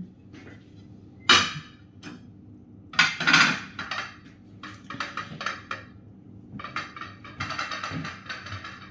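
Glass and kitchenware being handled: a sharp knock about a second and a half in, a louder clatter around three seconds, then a run of lighter clinks and knocks.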